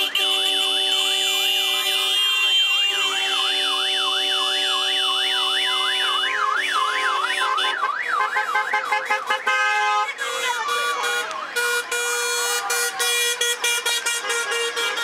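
Car horns blaring in several steady held notes at once, mixed with a siren-type horn warbling rapidly up and down, about two to three sweeps a second. The siren warble stops about nine and a half seconds in, after which honking goes on in shorter, choppier blasts over one held note.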